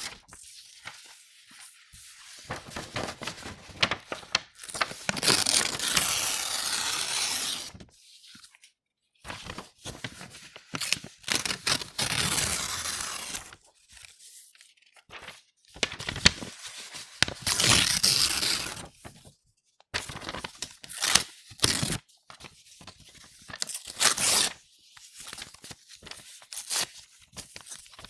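A4 sheets of paper being torn by hand, a series of rips of varying length, some long and drawn out, some short and sharp, with brief pauses and paper rustling between them.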